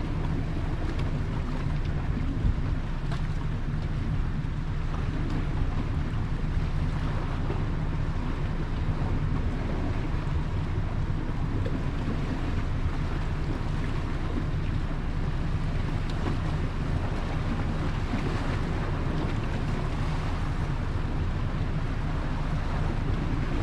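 Gale-force storm wind buffeting the microphone: a steady low rumble with a rushing hiss over it, without a break.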